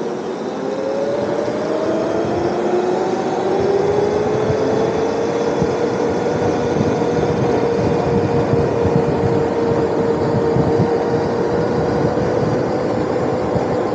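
Electric motorbike running under way, its motor whine rising in pitch as it accelerates over the first few seconds and then holding steady. Wind and road rush on the microphone at riding speed.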